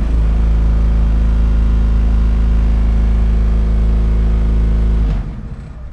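The motorhome's onboard generator running steadily just after starting, with a loud, low, even engine hum as it comes up to speed and powers the camper. The sound drops much quieter about five seconds in.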